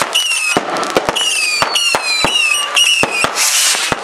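Fireworks going off in quick succession: a string of whistling shots, each a short whistle dipping slightly in pitch, one longer falling whistle through the middle, over a run of sharp bangs and crackles.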